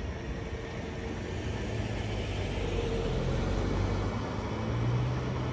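Road traffic moving off over a railroad crossing as the gates lift: a low engine and tyre rumble that builds as a car drives past close by about four to five seconds in.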